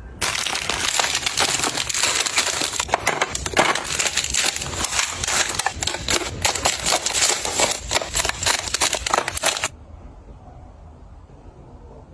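Crinkly packaging being crumpled and handled, a dense run of crackles that stops abruptly near the end.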